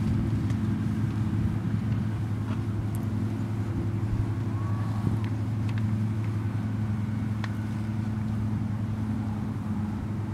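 A steady low hum from an idling motor, with a few faint clicks.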